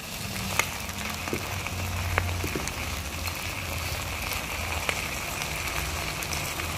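Food sizzling in hot oil in a wok: sliced boiled eggs and chilies frying with just-added oyster sauce, a steady sizzle with scattered pops and crackles.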